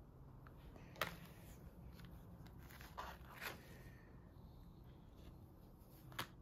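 Stiff cardboard document folder being handled: a few faint taps and rustles, about a second in, around three seconds in and near the end, over quiet room tone.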